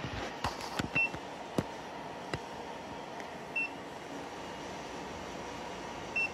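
An APC Smart-UPS SRT1500 rack-mount UPS gives three short, high beeps about 2.6 seconds apart while its battery is removed. A few light knocks of handling come in the first couple of seconds, over the steady hum of the running rack equipment.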